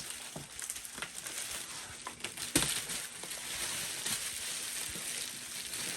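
A cardboard box and packing material being handled: rustling and scraping with scattered knocks, and one sharp thump about two and a half seconds in.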